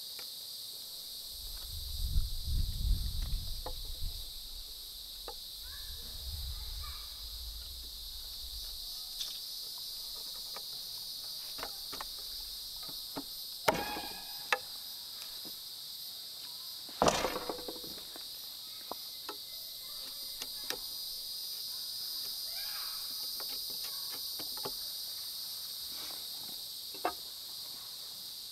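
Steady high-pitched insect chorus, with a low rumble a couple of seconds in and scattered sharp knocks, two of them loud around the middle.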